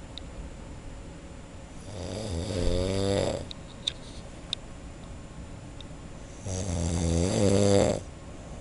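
A man snoring, heard from the next room: two long snores about four and a half seconds apart, each lasting about a second and a half.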